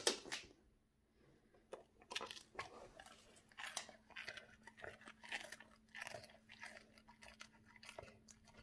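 A dog crunching and chewing a piece of toast, with irregular crisp crunches starting about two seconds in.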